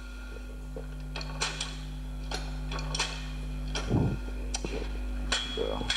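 Scattered clicks and knocks from handling a projector over a steady electrical hum, with a second hum tone joining about half a second in. A brief murmur about four seconds in.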